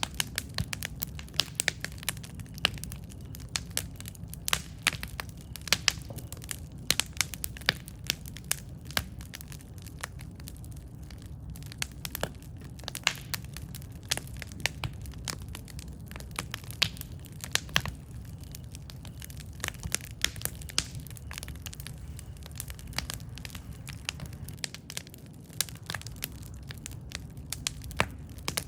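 Wood campfire crackling: many sharp, irregular pops and snaps, several a second, over a steady low rumble of the burning fire.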